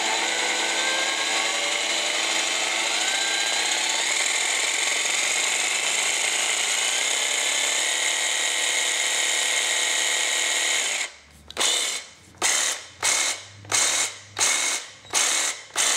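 Makita DJV180 18 V brushed cordless jigsaw running with no load, the blade stroking in the air, its pitch creeping up a little on the variable speed trigger. About eleven seconds in the trigger is let go and pulsed, so the saw runs in about seven short bursts.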